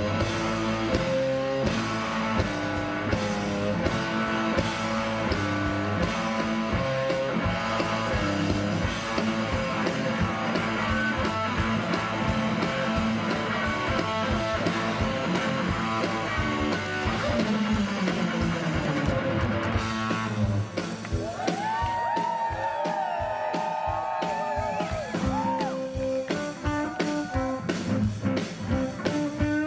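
Live electric blues band playing an instrumental, with electric guitar soloing over bass and drums. About two-thirds of the way in the band drops back and the guitar holds long, bending notes nearly alone, then the full band comes back in near the end.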